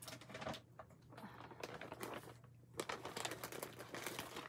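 Small items and packaging being handled on a tabletop: a scatter of light clicks, taps and crinkles at irregular intervals.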